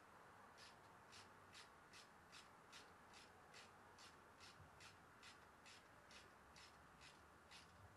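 Faint hand ratchet being worked back and forth on a bolt of a Kohler Command engine's charging system: a short burst of ratchet clicks on each return stroke, about two or three a second, in a steady run.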